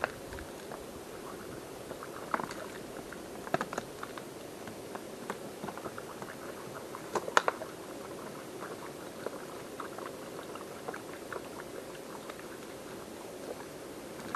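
Water bubbling and trickling steadily, with scattered small clicks and taps, the sharpest about two, three and a half and seven seconds in.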